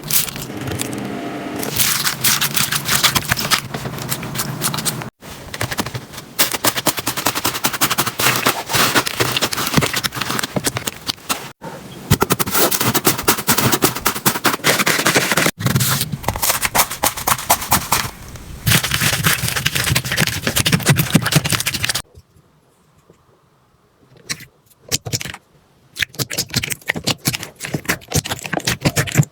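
Slime being squeezed and pressed by hand, giving dense rapid crackling and clicking, in several short clips that cut abruptly one into the next. Near the end it drops to near silence for about two seconds before sparser clicks resume.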